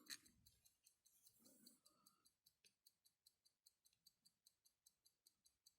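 Faint, even ticking of a pocket watch's lever-escapement movement with a helical hairspring, about five ticks a second.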